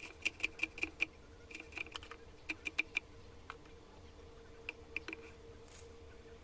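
Cleaver chopping chillies on a wooden cutting board: quick knocks of the blade against the board, about five a second in short runs, thinning to a few scattered taps after about three seconds.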